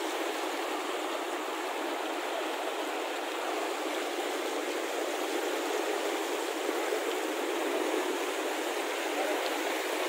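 A fast-flowing river rushing steadily: a constant, even noise of running water.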